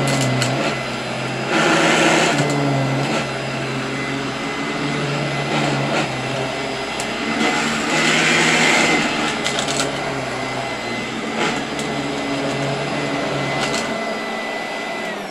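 Royal 18-inch vacuum cleaner running with a steady whine, with louder rushes of suction noise about two seconds and eight seconds in. Right at the end the motor is switched off and starts to wind down.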